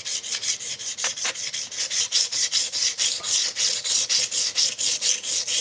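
Knife blade of CPM-M4 steel stroked rapidly back and forth on a wet 45 micron diamond sharpening plate, about five strokes a second, each a high scratchy hiss. The diamond is grinding the steel into swarf, refining a 7-degree bevel.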